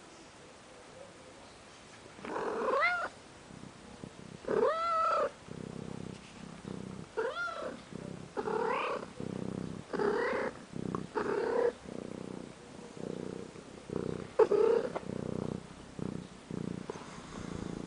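Domestic calico cat meowing about seven times in short, arching calls, purring steadily in between.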